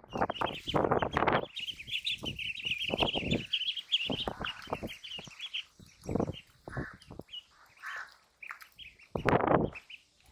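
A flock of ducklings peeping, many short high calls overlapping densely for the first few seconds and then thinning out. Short loud bursts of low rustling noise come and go throughout.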